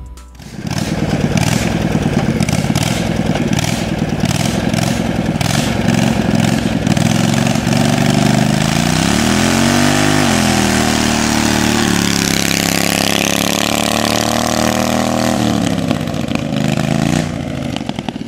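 Racing lawnmower's Kawasaki twin-cylinder engine, governor removed, running hard. It revs up and down, climbs to a high pitch about ten seconds in, holds there, and falls away near the end.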